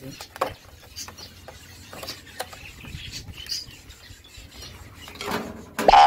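Light clicks, taps and crackles of a clear plastic blister pack and paper leaflet being handled on a metal table. Just before the end, a sudden louder sound begins.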